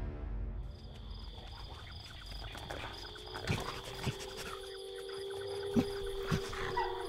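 A wolf howling: one long, steady, low howl that starts about three seconds in and dips in pitch near the end. Crickets chirp steadily from about a second in, and a few faint knocks are heard.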